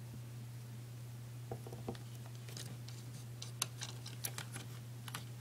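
Small sharp plastic clicks and taps of Lego bricks being handled as the anvil is pulled off the set, scattered irregularly from about a second and a half in. A steady low hum runs underneath.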